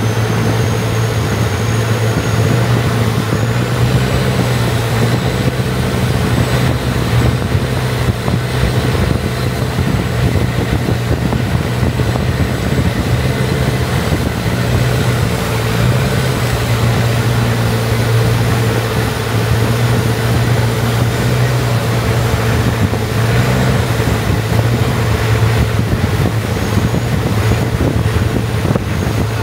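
Boat engine running at a steady pitch, with a faint high whine above it.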